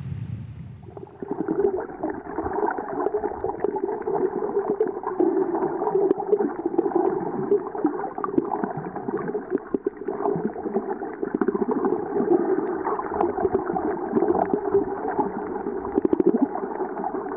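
Underwater water noise from the camera over a coral reef: a steady gurgling wash with dense crackling throughout, starting about a second in.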